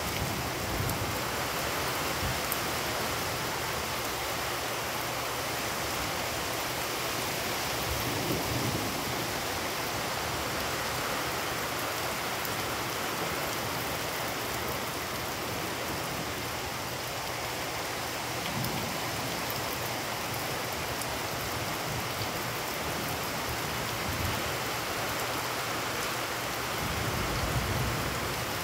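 Heavy rain pouring down onto puddled ground: a steady, even hiss of downpour.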